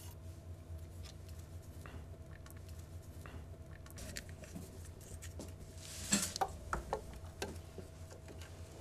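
Light clicks and scrapes as an Agni motor's brush holder and brushes are handled and eased down into the motor casing, with a short run of louder clicks and knocks about six seconds in.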